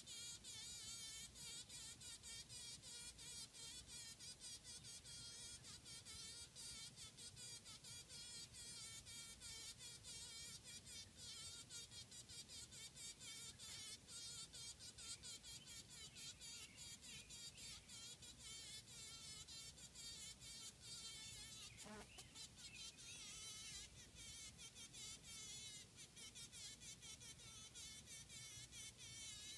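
Honey bee buzzing faintly, its wavering buzz broken by rapid crackling, as it struggles frantically while caught in a spider's web and under attack by the spider.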